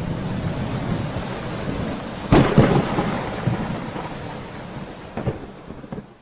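Thunderstorm: steady rain with a sharp thunderclap about two seconds in and a smaller one near the end, the whole sound fading down.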